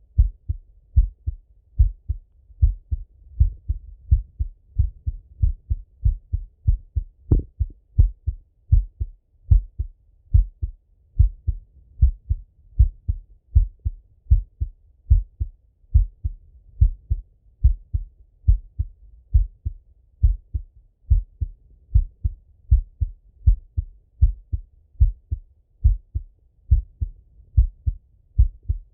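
A man's heart heard through a Littmann stethoscope: a regular rhythm of paired low thumps, the lub-dub of each heartbeat. One sharper click sounds about seven seconds in.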